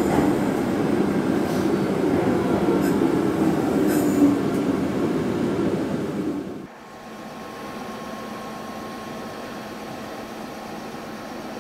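Meitetsu electric train running on the rails, a steady loud rumble with a few faint high clicks, which cuts off suddenly about two-thirds of the way through to a much quieter steady hum.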